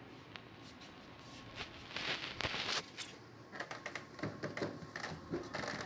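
Clear plastic packing bag rustling and crinkling as it is handled. A longer rustle comes about two seconds in, then a run of quick crinkles and light taps.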